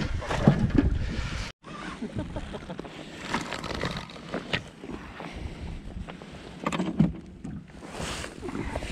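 Wind buffeting the microphone, cut off abruptly about a second and a half in; after that, quieter wind and water with scattered knocks and clicks from handling rods, reel and landing net in a small wooden rowboat.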